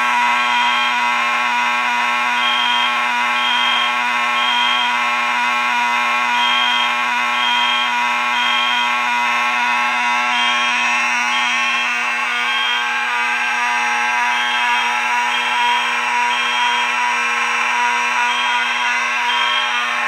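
CPG 4050D fire alarm horn sounding continuously, a loud, raspy steady buzz, powered by full-wave rectified power from the fire alarm panel. Over it a Kidde EG1AV LED horn beeps in the temporal-three pattern: three short high beeps, then a pause, over and over.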